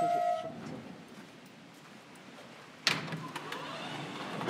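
New York City subway train at a platform: a brief squeal as it comes to a stop, a low hum, then a sudden clunk about three seconds in as the car's sliding doors open.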